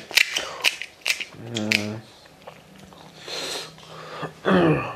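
Several sharp, crisp cracks in the first two seconds as a hollow fried fuchka (pani puri) shell is broken open by hand, with a short hum from a man in between and a brief falling vocal sound near the end.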